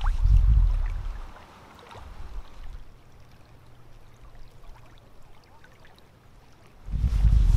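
Wind buffeting the microphone in low, uneven gusts that die away after about a second. Then a quiet shoreline with small waves faintly lapping, before the wind gusts return near the end.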